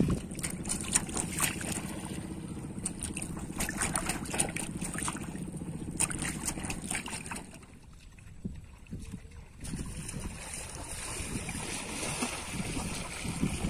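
Water sloshing and splashing at the surface around floating balloons, with wind on the microphone. It dips quieter for about two seconds past the middle.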